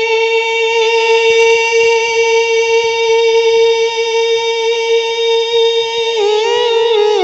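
A man's voice holding one long sung note of a ghazal for about six seconds, then breaking into quick wavering turns of ornament near the end.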